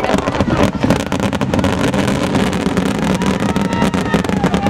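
Fireworks finale barrage: a dense, unbroken run of bangs and crackles over a steady low rumble.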